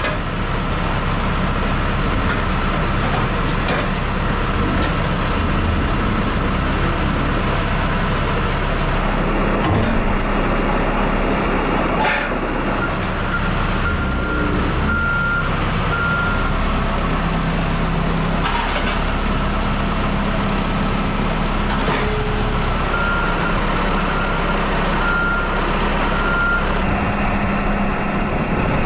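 Telehandler diesel engine running steadily, with its reversing alarm beeping in two short runs of evenly spaced beeps partway through.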